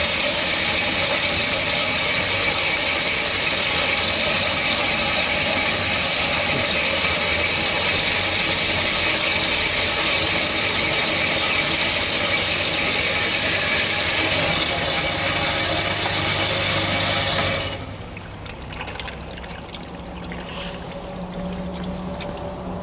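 Cormak G5025 metal-cutting band saw running with a loud, steady mechanical noise and several steady tones over a high hiss. The noise drops sharply about three-quarters of the way through, leaving a much quieter low hum.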